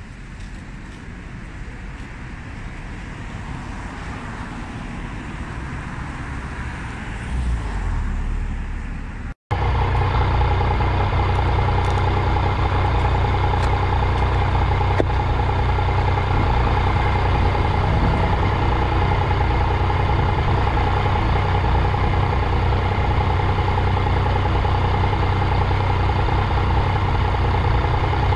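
Street traffic growing louder over the first nine seconds. Then, after an abrupt cut, a Yamaha motorcycle's engine idling steadily at a standstill, much louder and close up.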